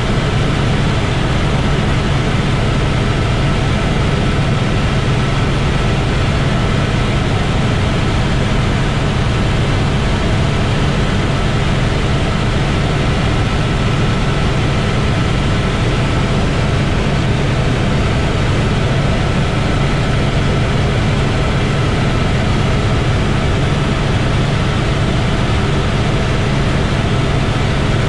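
Helicopter in cruising flight heard from inside the cabin: a loud, steady engine and rotor drone with a thin, constant whine above it.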